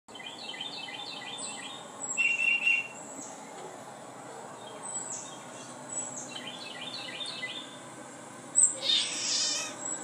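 Recorded birdsong played back from a bird video. Rapid runs of high chirps come near the start and again about six seconds in, with a louder call about two seconds in. The loudest chirping comes near the end.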